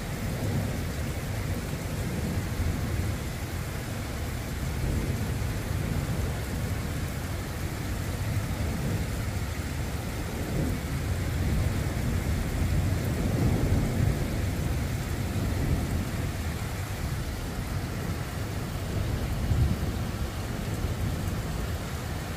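Thunder rumbling low and rolling through a steady hiss of rain during a summer heat thunderstorm. The rumble swells and fades in slow waves and is loudest about halfway through.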